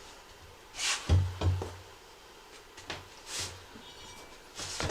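ATV tire being worked off its rim with a tire iron on a manual tire changer: a few separate scrapes and knocks of the metal tool against the steel rim and rubber bead.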